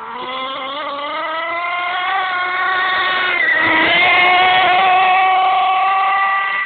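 HPI Bullet 3.0 nitro monster truck's .18-size two-stroke glow engine running at high revs, its whine climbing in pitch over the first two seconds. The note dips briefly about three and a half seconds in, then holds high and steady.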